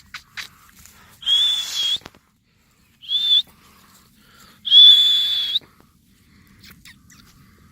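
A puppy squealing: three high, thin, steady cries, the last one the longest.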